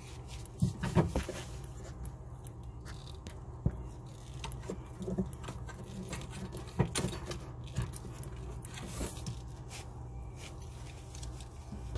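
Scattered metal clinks and scrapes of hand tools working on a sink faucet's water supply line fittings, over a steady low hum.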